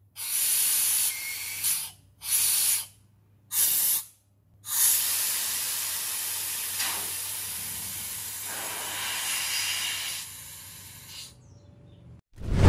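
Compressed air from the restored 30 HP air compressor hissing out: three short bursts, then one long blast of about seven seconds.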